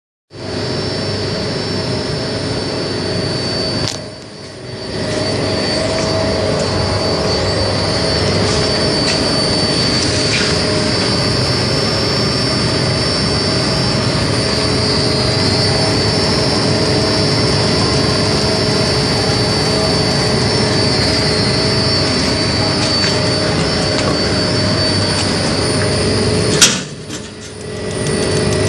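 Commercial laundry tumble dryer running: a steady drone of its blower fan and motor with a constant high whine. The sound drops away briefly twice, and a single sharp click comes just before the second drop.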